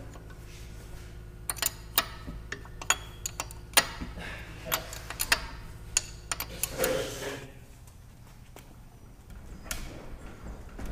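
Sharp metallic clicks and taps of hand tools on the propeller hub hardware of a Beechcraft Bonanza as the prop is worked loose for removal, irregular and bunched in quick runs. A low steady hum runs underneath and drops away a little past the middle.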